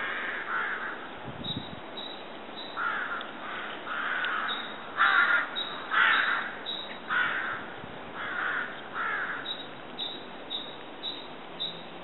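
Crows cawing, a series of separate caws coming about once a second, loudest around the middle.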